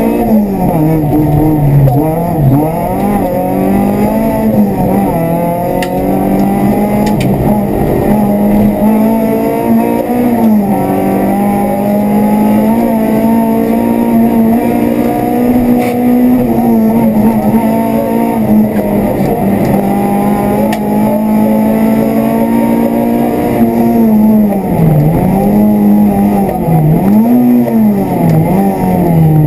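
Renault Clio rally car's engine, heard from inside the cabin, driven hard. The revs climb and drop with the gear changes, hold high and steady through the middle, then dip and rise again several times near the end.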